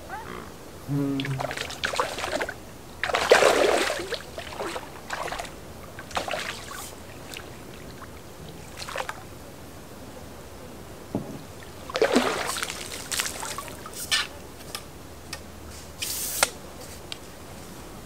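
Water splashing in bursts at the river's edge as a hooked fish is brought into a landing net, the loudest splashing about three seconds in and another bout around twelve seconds.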